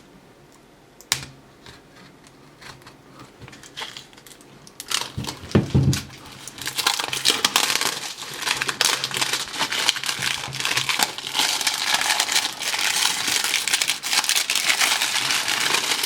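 Plastic wrapping on a sealed wax-pack box being torn open and crumpled. A few light clicks and rustles come first, then continuous crinkling from about five seconds in.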